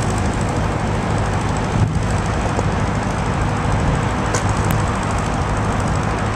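Freight train tank cars rolling past on the rails, a steady rumble of wheels and rail noise. A single knock comes about two seconds in.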